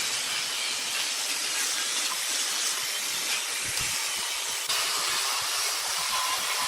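Steady hiss of wood being worked on a spinning woodturning lathe. It turns slightly louder and brighter about two-thirds of the way through.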